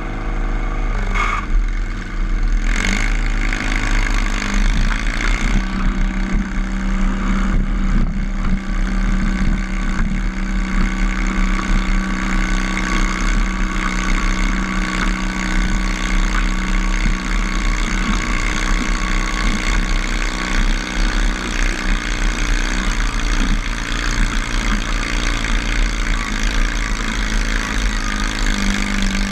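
Modified garden tractor engine running hard under load as it pulls a weight-transfer sled down the track, holding a steady pitch, with a few sharp clanks in the first few seconds.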